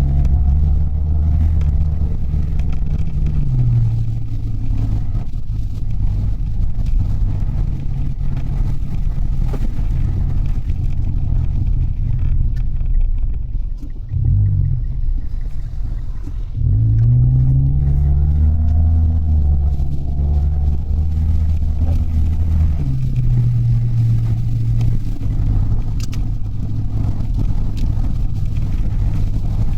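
Engine and road noise of a Mitsubishi Delica heard from inside the cabin as it drives. The engine pitch shifts several times. The vehicle eases off about 14 s in, then speeds up again with a rising engine note about 17 s in.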